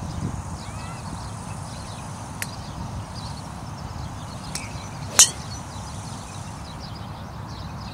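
Golf driver striking a ball once: a single sharp crack about five seconds in. Two much fainter clicks come before it.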